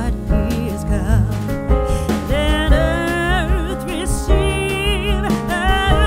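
Background music: a sung melody with vibrato over instrumental accompaniment and a steady bass.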